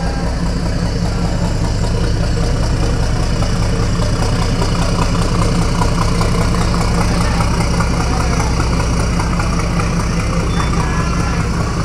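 Aluminium passenger ferry's engines running at low speed as it manoeuvres past, a steady low drone that swells a little midway.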